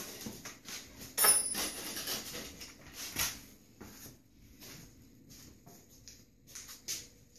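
Irregular metal clinks, knocks and scrapes of hand tools and engine parts being handled during an engine teardown, loudest in a clank with a brief ringing edge about a second in and a sharp knock about three seconds in.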